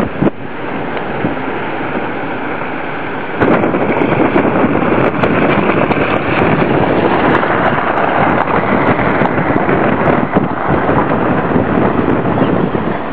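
Wind buffeting the camera's microphone over the rush of breaking ocean surf, easing a little in the first few seconds and growing louder from about three and a half seconds in.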